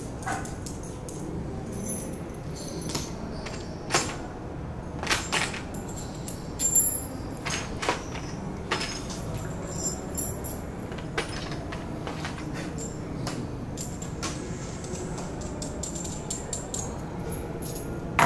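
Small metal bolts and nuts clicking and clinking as they are handled and threaded by hand, in scattered sharp ticks, the louder ones about four, five and seven seconds in. Near the end a bolt is set down on a plastic tray with a louder click.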